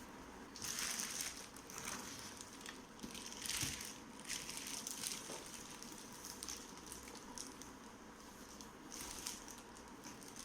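Packaging being handled during an unboxing, crinkling and rustling in several short bursts with quieter handling noise between them.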